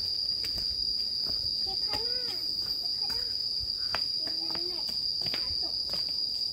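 Insects in forest, droning in one steady, unbroken high-pitched whine, with faint distant voices and scattered light clicks underneath.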